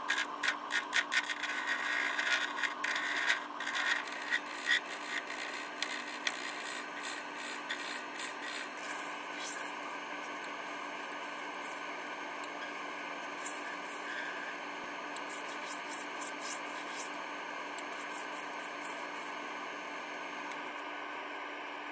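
Wood lathe running with a steady motor whine while a carbide-insert tool scrapes and shaves a small spinning wooden spindle. The cutting is dense and rapid for the first several seconds, then comes in brief light passes over the steady hum.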